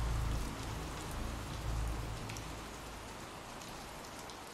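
Steady rain falling, an even hiss with a low rumble underneath that swells briefly at the start and again about two seconds in, the whole bed slowly fading out.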